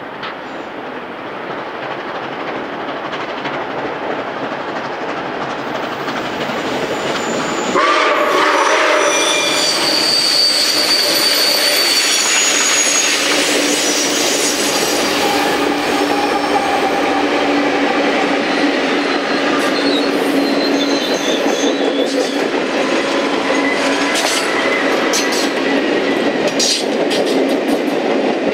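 Nickel Plate Road 765, a 2-8-4 Berkshire steam locomotive, approaches with its train and grows louder, then comes up close about eight seconds in. Its two diesel locomotives and a long string of passenger cars then roll past. Near the end the wheels squeal and click over the rail joints.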